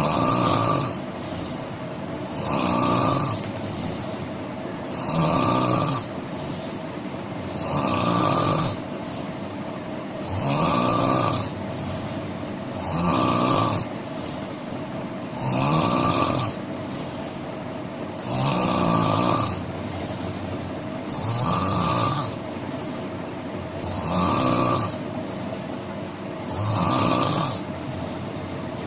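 A person snoring in a steady rhythm, one loud snore about every two and a half to three seconds, over a steady background noise.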